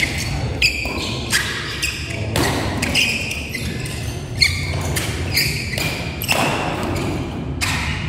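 Badminton doubles rally: rackets striking the shuttlecock in quick exchanges, with shoes squeaking on the court floor between hits.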